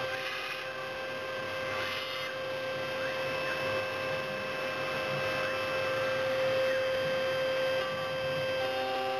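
CNC milling machine running: a steady high spindle whine over the noise of the cutter working through block material.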